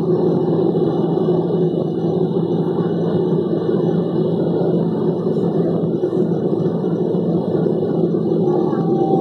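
Jet engines of a Boeing 777-200 heard from inside the cabin during the climb after takeoff: a steady, loud whoosh with a constant underlying hum.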